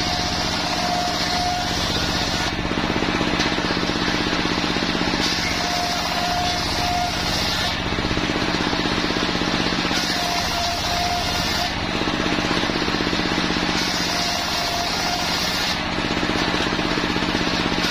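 Homemade engine- or motor-driven circular sawmill running steadily while its large blade rips Jenitri wood into pallet boards, the cutting sound changing in repeated passes about every four seconds.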